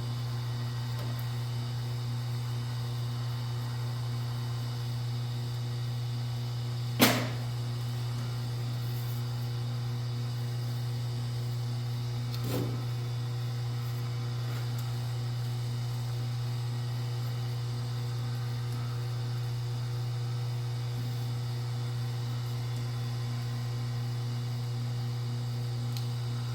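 Steady low electrical hum, like mains hum, throughout. A sharp click about seven seconds in and a fainter click about twelve seconds in.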